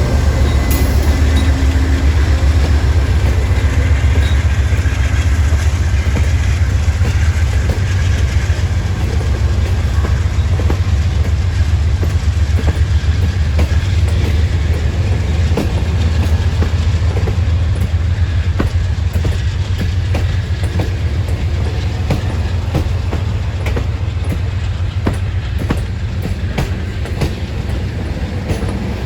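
Amtrak Auto Train rolling by: a steady low rumble with wheels clicking over rail joints, the clicks coming thicker in the second half.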